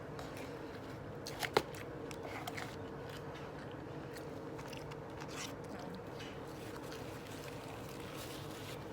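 Soft chewing and biting on McDonald's fries and a Big Mac-style burger, with scattered small clicks and one sharp click about one and a half seconds in.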